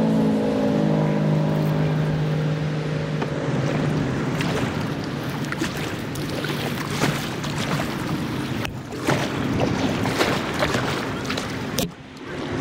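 Kayak paddle dipping and splashing, with water dripping off the blades in irregular spatters. Over the first few seconds a road vehicle's engine hum, slowly falling in pitch, fades out.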